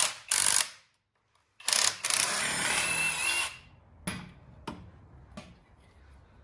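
Power tool run in short bursts on the coilover's spring and strut assembly, then held for a longer run of about two seconds, followed by a few sharp clicks of metal handling.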